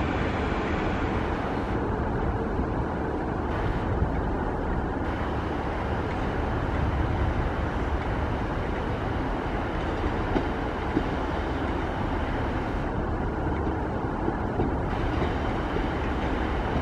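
Class 150 diesel multiple unit running slowly into the platform, its underfloor diesel engines running steadily, with a few sharp clicks of wheels over rail joints and points.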